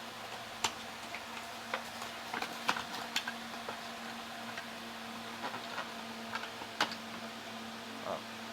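Hot Wheels die-cast toy wheel loader being handled: light, irregular clicks and taps, over a steady low hum.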